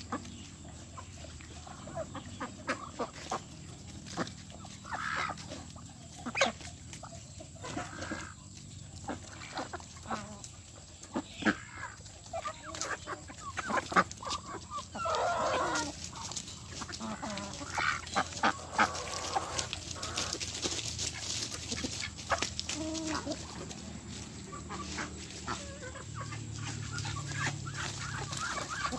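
Domestic chickens clucking on and off as a flock of chickens and ducks pecks at rice in dry leaf litter, with many short sharp taps and rustles from the pecking.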